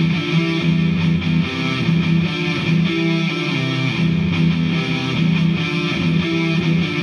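Electric guitar, a Vintage V100 Les Paul-style, played through a DigiTech GNX3 multi-effects distortion patch into an H&K Attax amplifier: a riff of low notes repeated over and over.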